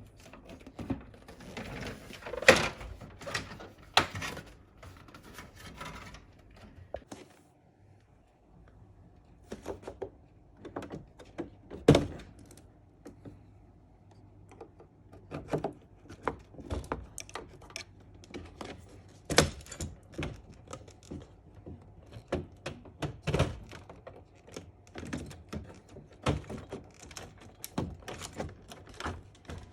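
Irregular clicks, taps and clunks of hands working on a Mitsubishi heat pump unit's parts while it is taken apart for fan cleaning, with the unit switched off. Louder single knocks come about two, twelve, nineteen and twenty-three seconds in.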